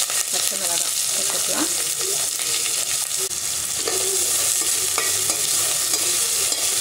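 Chopped ginger and garlic with green chillies and curry leaves frying in hot oil in a steel pot, a steady sizzle, with a ladle stirring them around.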